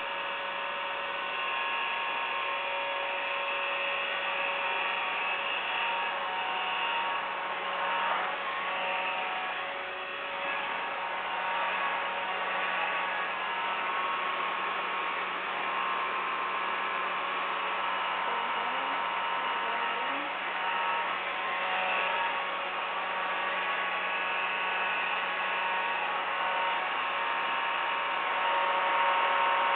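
Vacuum cleaner running steadily: a constant motor whine with several steady tones over a hiss of rushing air.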